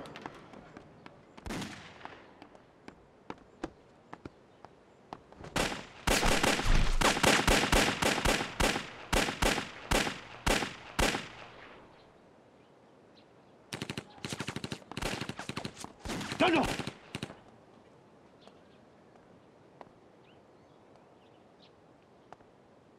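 Gunshots from pistols in a shootout. A single shot comes about a second and a half in, then a long run of rapid shots lasting about six seconds. After a short pause another rapid burst follows, with a man shouting "站住!" ("Stop!").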